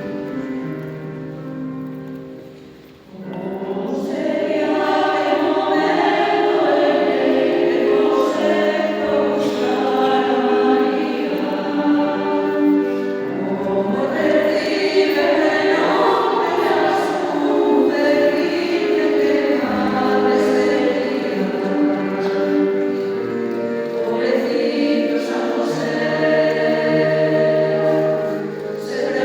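Choir singing a slow religious song in sustained harmony. It swells in about three to four seconds in, after a short, quieter held opening fades away.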